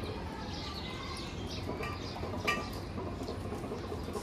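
Dogs eating from stainless steel bowls on a tiled floor, with one sharp metallic clink about two and a half seconds in, and birds chirping in the background throughout.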